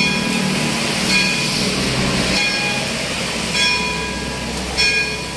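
Church bell tolling, about five strokes a second and more apart, each stroke ringing on and fading, over a low steady background hum.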